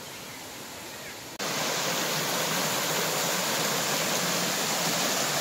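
Rushing water of a small stream waterfall cascading over rocks into a pool, a steady rush. About a second and a half in it turns suddenly louder and fuller, as the close pour of the cascade.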